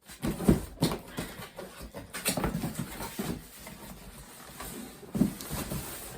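Box being unpacked by hand: a busy run of rustling packaging and irregular knocks and clatter as parts are pulled out.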